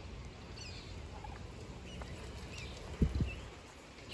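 Moorhen chicks giving a few short, high peeps, with a brief low thump about three seconds in.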